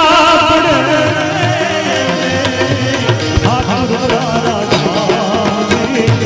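Indian-style music: a wavering, ornamented melody line over drum strokes and other instruments.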